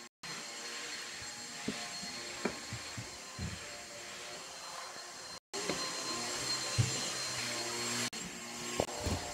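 Footsteps and bumps going down a carpeted staircase, heard as scattered low thumps over a steady whooshing machine noise. The sound cuts out completely twice for a moment.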